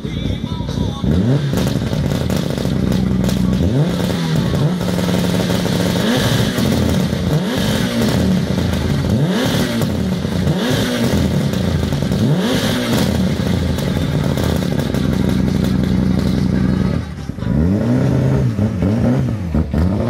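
Mitsubishi Lancer Evolution's turbocharged four-cylinder engine being revved in repeated quick blips, each rising and falling back, with a steadier stretch of idle about two thirds of the way in. The revving drops off briefly and then starts again near the end.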